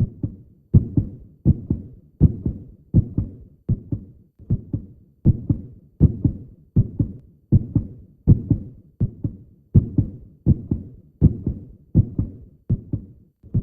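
Heartbeat, a steady double thump ('lub-dub') repeating about 80 times a minute.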